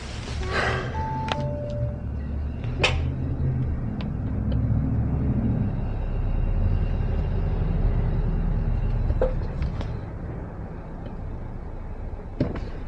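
Audi Q5's engine running with a low, steady rumble that grows louder through the middle and eases off again, with a falling two-note electronic chime about a second in and a few sharp clicks.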